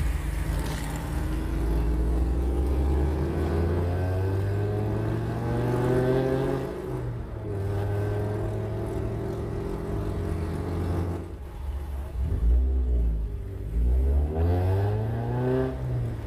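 Honda Prelude Si's H23A1 four-cylinder engine heard from inside the cabin, accelerating: its pitch climbs, falls back about seven seconds in and again near twelve seconds, then climbs once more.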